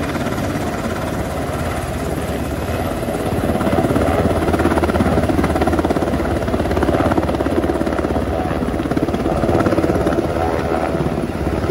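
Sikorsky MH-60R Seahawk helicopter's main rotor and twin turboshaft engines running at lift-off power, with a fast, even rotor beat. It gets louder about three and a half seconds in as the helicopter rises off the deck.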